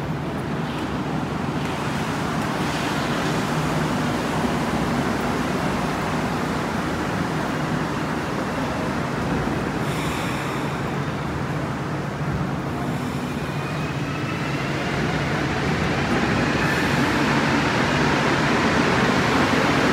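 Rubber-tyred Montreal Métro Azur trains in the station give a steady, noisy rumble. About two-thirds of the way in, a rising whine sets in and climbs in pitch as a train's traction motors accelerate it out of the station.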